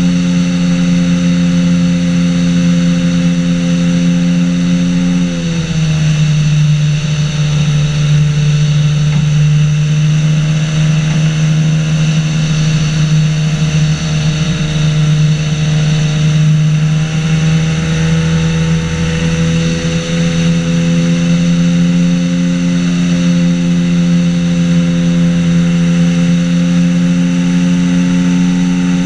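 Engine and pusher propeller of a flying inflatable boat running steadily in flight. The engine note drops a little about five seconds in and climbs back up about twenty seconds in.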